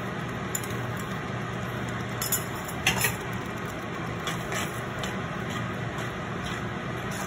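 Steel spoon stirring thick chilli masala paste in a clay pot, with scattered clinks and scrapes of the spoon against the pot from about two seconds in, over a steady background hiss.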